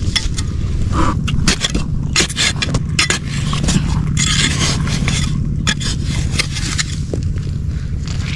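Repeated scraping and knocking of digging in wet earth, irregular strokes throughout, over a steady low motor drone.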